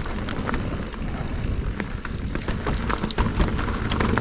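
Mountain bike rolling over a frozen, icy dirt trail: tyres crunching and the bike rattling with many sharp clicks over bumps, over a steady low rumble.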